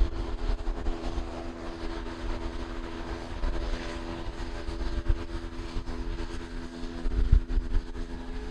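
Short 360's twin Pratt & Whitney Canada PT6A turboprop engines running at taxi power: a steady propeller drone with several held tones. Irregular low rumbles of wind on the microphone run underneath.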